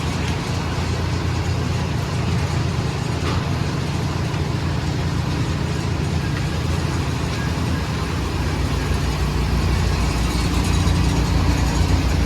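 A fire department mini-pumper's engine running steadily with a low rumble that grows a little louder near the end.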